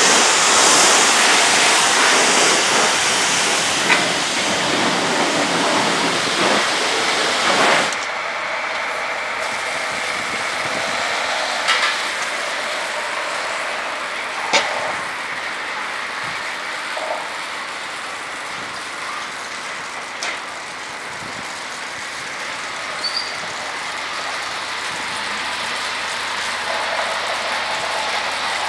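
Ceccato tunnel car wash running as a car passes through. A loud hiss of water spray cuts off suddenly about eight seconds in, leaving a lower, steady wash of water and machinery with a few sharp knocks.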